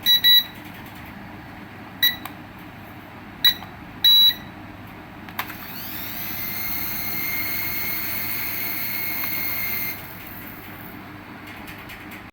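Electronic toy beeps, four short high beeps in the first four seconds or so, then a small electric motor whirring up and running steadily for about four seconds before stopping.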